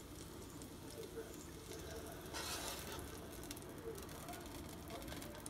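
Faint background noise with a few light clicks and a brief hiss about two and a half seconds in.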